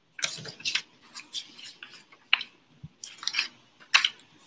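Handling noises at a desk: a series of short scratchy rustles and a few sharper clicks as things are picked up and moved about.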